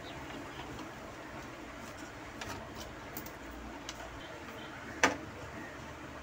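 Small clicks and taps of a circuit board and new relays being handled and fitted by hand, with one sharp, louder click about five seconds in, over steady background noise.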